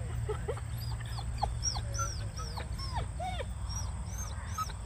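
A dog whining and yipping: a rapid string of short, high rising-and-falling cries, over a steady low rumble.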